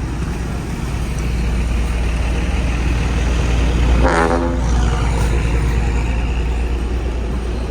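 A tour bus drives past with a heavy low engine rumble that grows louder toward the middle and fades again. About four seconds in, a short horn toot of about half a second sounds.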